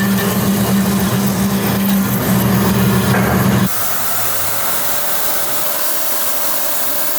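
Bandsaw running steadily with a low hum, cutting a Delrin blank. About halfway through the sound cuts off abruptly and is replaced by a quieter, steady hiss from another shop machine.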